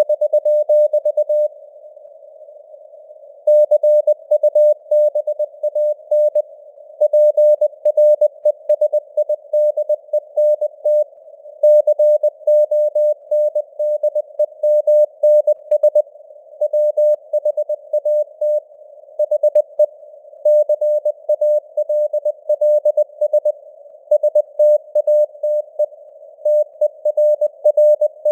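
Morse code (CW) sent at 20 words per minute: a single tone of about 600 Hz keyed on and off in dots and dashes, grouped into letters and words, over a narrow hiss of simulated radio noise.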